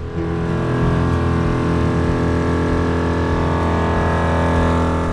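Air compressor running steadily as it inflates tyres after off-roading, a constant motor drone that cuts off about five seconds in.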